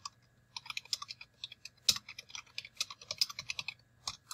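Typing on a computer keyboard: a quick run of key clicks starting about half a second in, with one louder key press about two seconds in.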